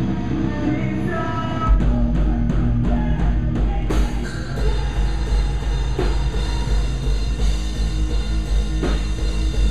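Post-hardcore band playing live. Held guitar chords give way, just under two seconds in, to heavy bass and drum kit. A quick run of drum hits follows, ending in a cymbal crash about four seconds in, and the full band plays on.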